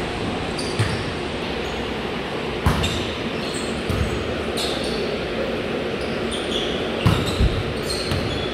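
Volleyball being played on a hardwood gym floor: the ball struck or bouncing several times in sharp smacks, with short high squeaks of sneakers on the floor, over the steady background noise of the large hall.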